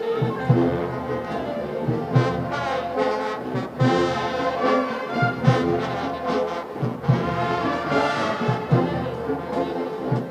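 Large brass band playing: trumpets, trombones and sousaphones in full harmony over a steady bass-drum beat.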